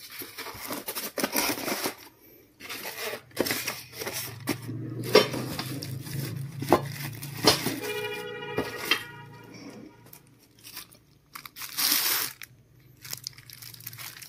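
Plastic wrapping crinkling and rustling as plastic-bagged metal TV wall-mount brackets are handled and pulled from a cardboard box, with a few sharp knocks. A brief steady tone sounds about eight seconds in.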